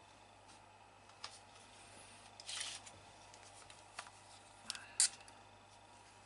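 Marker pen and ruler being handled at the lathe: a few sharp small clicks, the loudest about five seconds in, and a short scratchy scrape between two and three seconds in.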